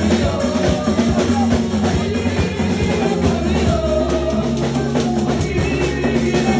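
Church worship music: a drum kit beating steadily over held bass and chord notes, loud and continuous.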